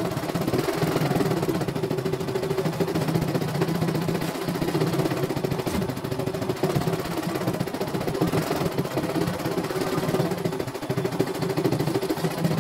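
CNY E900 computerized embroidery machine stitching out a design: a fast, steady rattle of the needle working through the fabric in the hoop.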